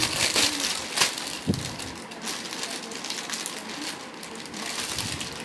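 Clear plastic packaging bag crinkling and crackling as hands handle it, louder in the first second or so and quieter after that.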